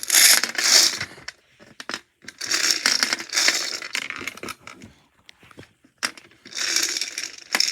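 Lottery balls rattling and clicking together as they are mixed for the draw, in three bursts with short pauses between.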